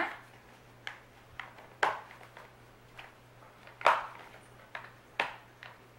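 Sharp plastic clicks and knocks as a fabric seat cushion is fitted onto a Fisher-Price infant-to-toddler rocker's plastic frame, about six in all, the loudest about two and four seconds in.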